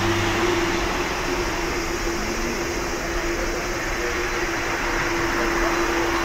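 Boeing 787-9 Dreamliner's GEnx jet engines running at low power as the airliner rolls slowly on the ground: a steady rushing noise with a steady humming tone.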